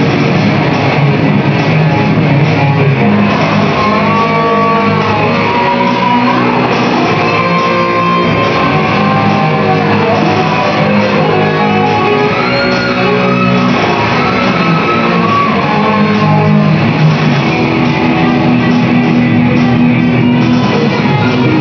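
Heavy metal band rehearsal: electric guitars playing loud and steady over a keyboard backing that stands in for the missing drums.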